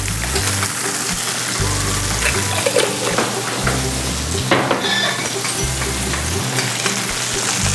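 Meatballs and vegetables sizzling in a hot frying pan as rosé sauce and cream go in, with a few light clicks of a wooden spatula in the pan. Background music's low bass notes come and go underneath.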